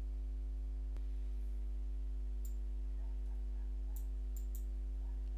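Steady low electrical hum in the recording, with a few faint short clicks in the second half.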